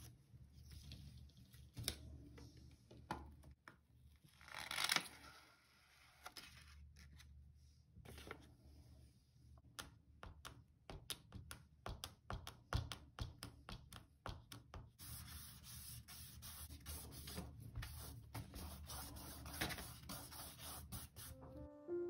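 Paper rustling as a sheet is peeled off watercolour paper, loudest about five seconds in. After that comes an eraser rubbing over pencil lines on the paper in many quick short strokes, lightening the transferred drawing.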